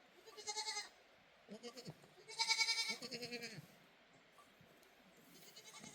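Goats bleating, about four quavering calls. The loudest comes about two and a half seconds in, and a fainter one comes near the end.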